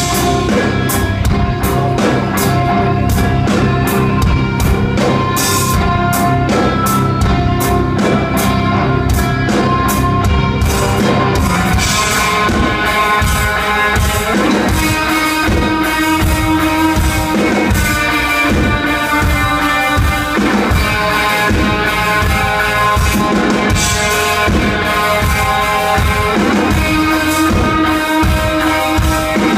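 Live rock band playing: drum kit beating steadily under electric guitar and bass. About twelve seconds in the arrangement changes to a denser, fuller sound with a held low note.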